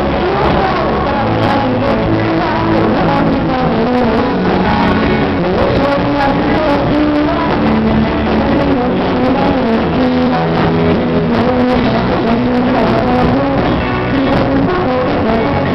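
Loud rock music with electric guitar from a live band, amplified through a PA sound system, playing steadily without a break.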